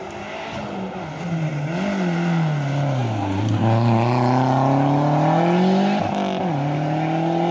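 Rally car engine coming into a hairpin: the revs rise, then fall steeply as it slows for the corner. It then revs up hard and loud as it accelerates out, with a quick gear change about six and a half seconds in.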